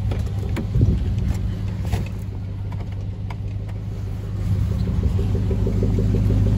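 Pickup truck engine idling steadily, with a few sharp clicks and knocks in the first two seconds.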